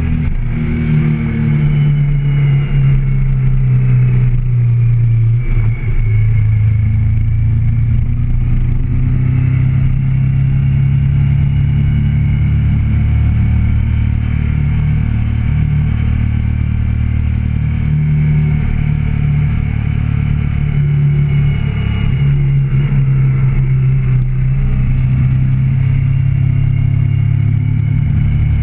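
Motorcycle engine running steadily at road speed, picked up by a handlebar-mounted camera, its note shifting a little a few times with a brief dip about five and a half seconds in.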